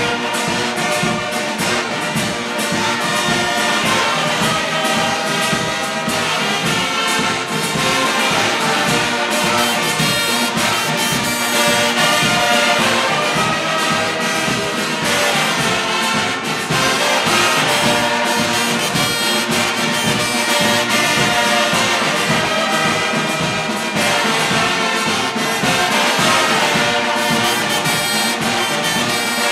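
Brass band of trumpets and trombones playing loudly together, with a steady beat in the low end.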